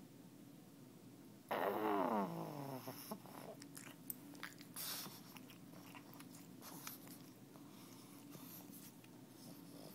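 A pug makes one loud whine that falls steadily in pitch, then smacks and licks its lips with a run of small wet clicks.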